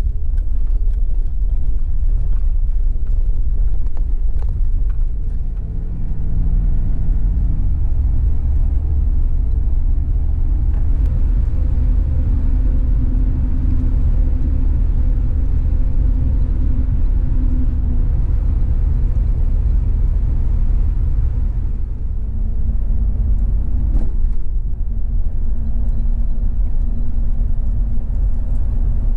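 An SUV driving on the road: a steady low road-and-engine rumble, with a faint hum that shifts in pitch now and then.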